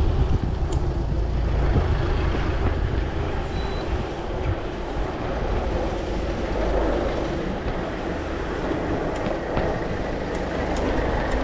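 Wind buffeting and road rumble on a camera mounted on a moving bicycle's handlebars, a steady low rumble throughout. A short high electronic beep sounds about three and a half seconds in.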